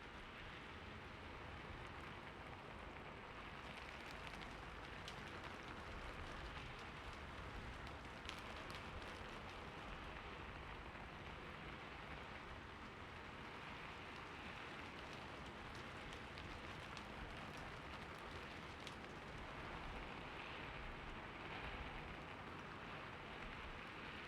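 Steady rain falling, an even hiss with scattered sharp drip ticks on top.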